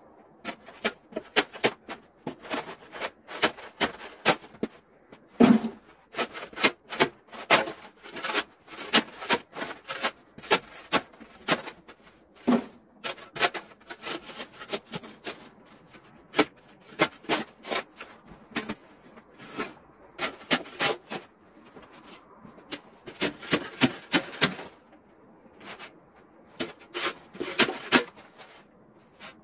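Snow shovel blade scraping and scooping over packed snow in many short, irregular strokes, with a couple of brief lulls.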